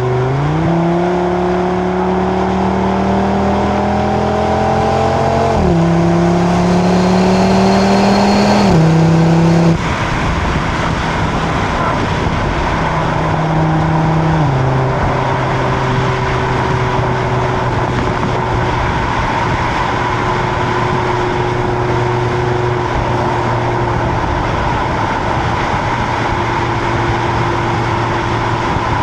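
Exhaust of a stock 2025 Audi RS3's 2.5-litre turbocharged five-cylinder under acceleration. The revs rise through a gear, then step down twice in quick upshifts. About ten seconds in, the driver lifts off and the engine settles into a steady cruise, with one more upshift a few seconds later.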